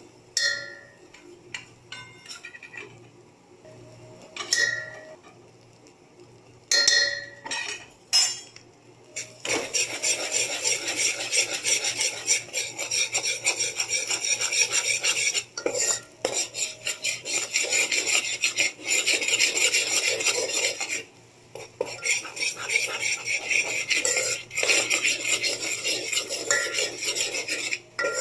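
A spoon stirring and scraping flour into melted butter and oil in a steel pot to cook a roux: a few scattered taps and clinks at first, then continuous rapid scraping against the pot from about ten seconds in, pausing briefly a couple of times.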